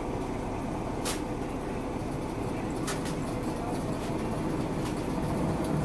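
Motor-driven steel drum machine running with a steady mechanical rumble, with a few sharp clicks, one about a second in and one about three seconds in.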